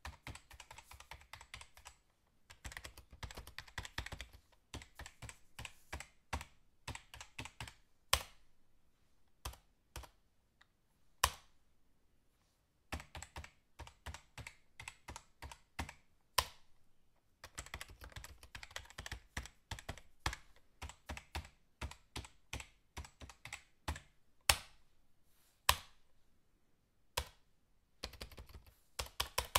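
Typing on a computer keyboard: quick runs of key clicks broken by short pauses, with an occasional single louder key strike.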